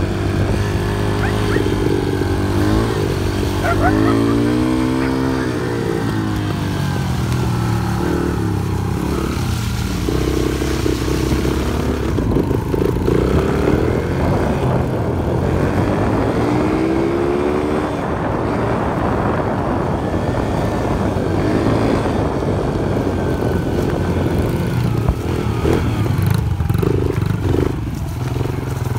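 Small dirt bike engines running on the move: a steady low engine note throughout, with one engine's pitch rising and falling as it revs, a few seconds in and again past the middle.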